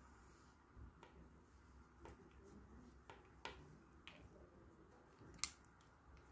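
Faint handling noise of hands working yarn and a bamboo knitting needle, with a few scattered light clicks and one sharper click about five and a half seconds in.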